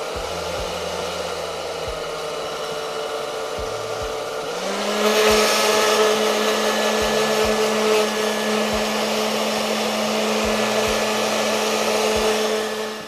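Hot Tools hair dryer blowing hot air to shrink heat-shrink tubing over soldered wire splices. A steady whir that steps up to a higher, louder speed about four and a half seconds in, then cuts off near the end.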